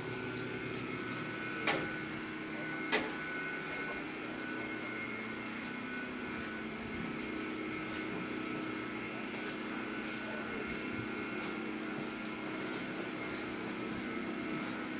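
Two footsteps knocking on the steel floor of an old railroad passenger coach, a little under two seconds in and again about a second later, over a steady background hum.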